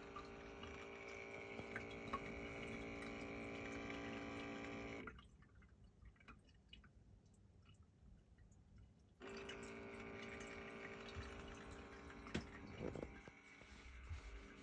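Miruto mona automatic cat water fountain's pump running with a faint steady hum over trickling water, cutting out abruptly about five seconds in and starting again about four seconds later. The stop-start in smart-supply mode and a grinding noise that has grown louder by the day are the owner's signs of a faulty pump.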